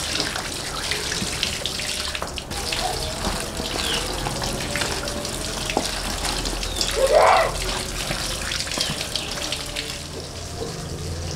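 Water running steadily from a hose and splashing over lemongrass and other spices as they are rubbed clean by hand in a colander and a woven bamboo basket. A brief louder cry, rising in pitch, cuts in about seven seconds in.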